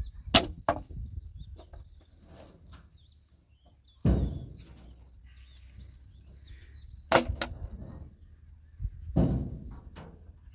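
Sharp thuds: a quick pair at the start, then single ones every two to three seconds. Birds chirping in the background.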